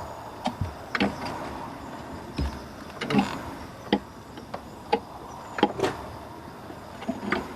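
Irregular metal clinks and knocks of hand tools working on an engine, about a dozen sharp hits at uneven spacing, the loudest about three seconds in and just before six seconds in.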